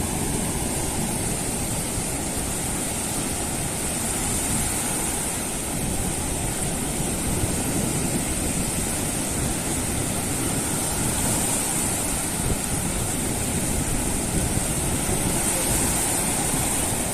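Mediterranean Sea waves washing steadily onto the shore, with some wind buffeting the microphone.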